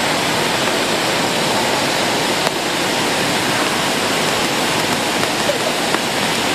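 Steady rushing and splashing of water in an indoor water park, a loud unbroken noise without a break.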